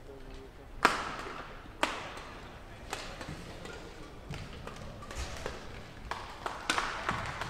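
Badminton rackets striking the shuttlecock during a rally: sharp hits about once a second, the first the loudest, then a quicker scatter of lighter clicks near the end.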